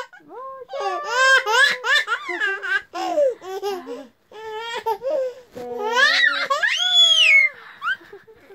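A toddler laughing in repeated bursts of giggles, with a long high-pitched squeal that rises and falls near the end.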